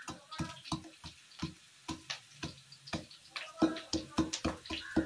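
Wooden pestle pounding garlic cloves in a wooden mortar: a steady run of knocks, about three a second.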